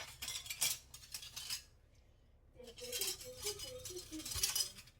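Small hard objects clinking and rattling as they are handled and set down: two busy runs of light clicks with a short pause between. Faint background music plays a run of notes that steps downward in the second half.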